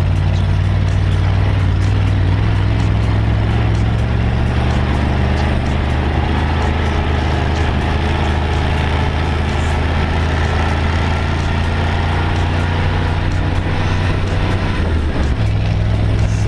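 Dune buggy engine running steadily as the buggy drives over sand dunes. The engine note shifts up near the end.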